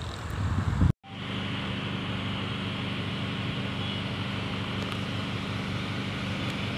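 Steady distant drone of an approaching ZCU-30 diesel locomotive, after a brief cutout of the sound about a second in.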